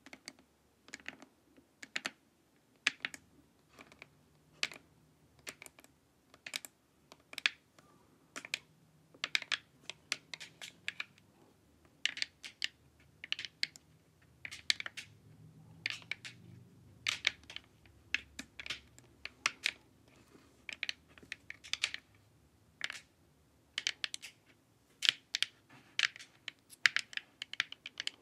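Long fingernails tapping on a hard, glossy plastic face mask: irregular sharp clicks, often several in quick succession.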